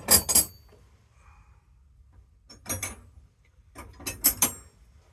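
Steel spanners clinking against one another as they are handled and set down: three short bursts of metal clatter with a brief high ring, about a second apart, then two seconds apart.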